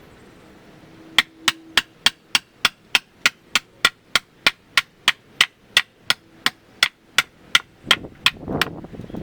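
Steady hammering: about two dozen sharp, evenly spaced strikes, roughly three a second, that stop near the end, followed by a brief scraping rustle.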